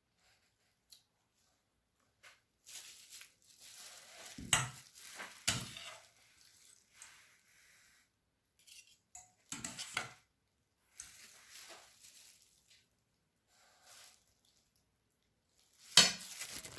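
Spatula scraping and tapping against a dish while spreading thick chocolate frosting, with a few sharp clatters of metal on the dish; the loudest comes near the end.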